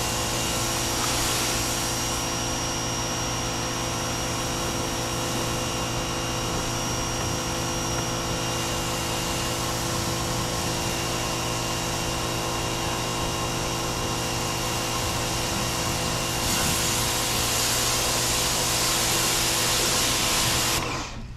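Pressure washer's motor pump running steadily with the hiss of its water spray, cutting off abruptly just before the end. The spray is weak, which the owner finds no stronger than a garden hose and too slow to rinse a car.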